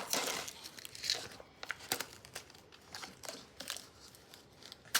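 Plastic packaging of a Pop Mie instant noodle cup crinkling and tearing as it is pulled open and handled, in irregular short rustles and crackles.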